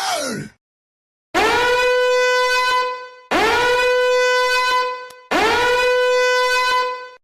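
A horn-like wind-instrument blast, sounded three times in a row: each one scoops up quickly into a long, held, buzzy note. Just before the first blast, the tail of a falling, sliding tone dies away.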